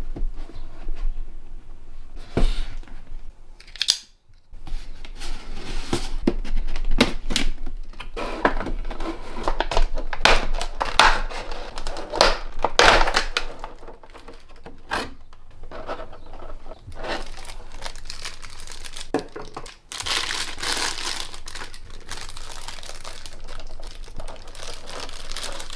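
Clear plastic packaging crinkling and rustling as it is handled and peeled off a figure: a dense run of close crackles, broken briefly twice.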